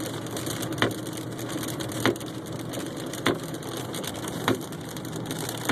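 Car windshield wipers knocking at the end of each sweep, five times at an even beat of about one every 1.2 seconds, over the steady rumble of the car driving through a rainstorm, heard inside the cabin.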